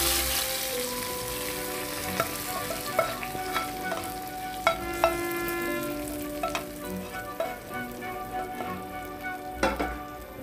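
A hot-oil tempering of fried onion, garlic and dried red chillies is poured into a pot of cooked red lentils and bottle gourd. It sizzles loudly as it hits, then dies down over the first second or so. A few knocks follow as the wooden spatula scrapes the pan and stirs the pot.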